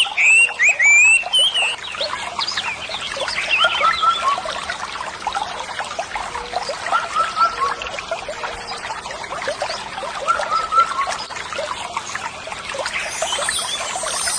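Water trickling and splashing in a small continuous stream, with a few louder high chirps in the first two seconds.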